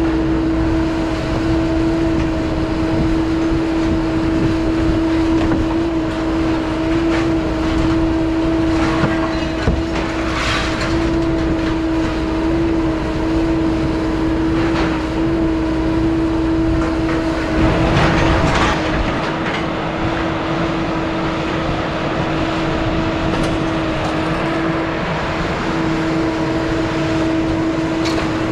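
A steady machine hum holding one pitch with an overtone, over a noisy rumble, with a few short swells of hiss, the strongest about two-thirds of the way in.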